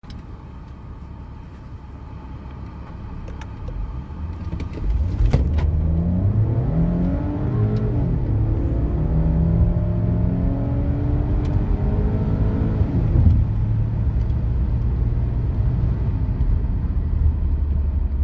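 Car engine idling, then accelerating hard from a standstill from about five seconds in. Its pitch climbs and drops back several times as it shifts up through the gears, then it runs steadily near the end.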